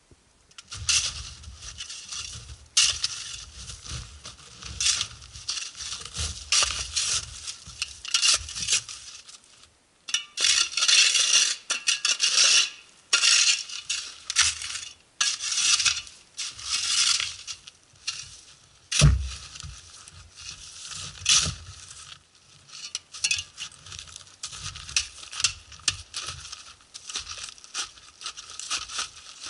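Irregular crunching and scraping in snow from snowshoes tramping and a plastic snow shovel digging. There is a short break about ten seconds in and one dull thump a little before twenty seconds.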